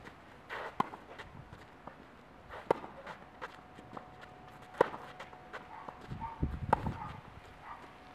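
Tennis rally on a clay court: four sharp racket-on-ball hits about two seconds apart, the third the loudest, with fainter ball bounces and footsteps on the clay between them.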